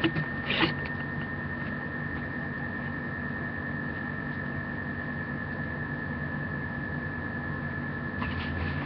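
Steady room hum with a constant high whine, and a couple of small knocks in the first second.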